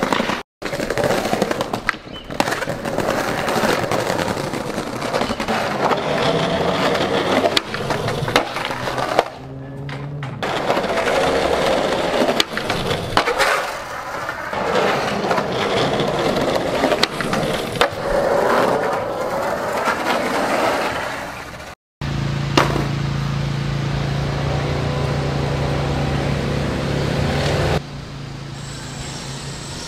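Skateboard wheels rolling over rough pavement, with a few sharp knocks of the board. The sound cuts out abruptly twice, and after the second cut a steady low hum takes over.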